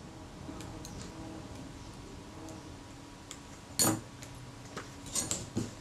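Small metal clicks and taps of steel tweezers handled over the work, with a sharper click nearly four seconds in as a pair of tweezers is put down, and a few more light clicks near the end.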